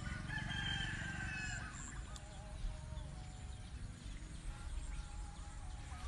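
A rooster crows once, one long call in the first two seconds, over a steady low rumble.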